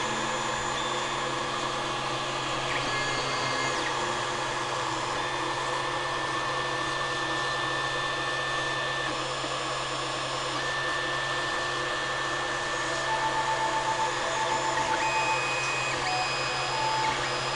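Creality Ender 3 3D printer running mid-print: its cooling fans whir steadily while the stepper motors whine in notes that keep changing pitch as the print head and bed move. A run of short, quickly repeated notes comes about two-thirds of the way through.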